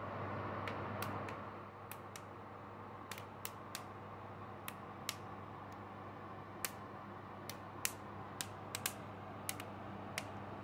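Fan oven running with a steady hum while germinated grain is kilned into malt on its trays. Irregular sharp ticks and clicks, about two a second, come from the hot oven and drying grain.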